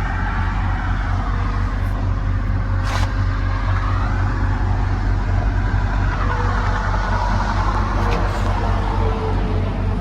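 Case CX330 excavator's diesel engine running steadily, with a wavering higher tone over the low engine hum and two brief clicks.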